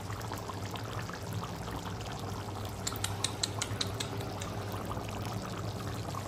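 Beef curry bubbling in a kadai, a steady simmering hiss with a low hum under it. About three seconds in there is a quick run of sharp clicks.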